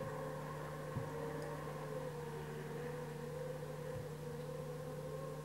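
Steady low hum under a slowly wavering higher drone tone, with two soft low thumps, one about a second in and one near four seconds in.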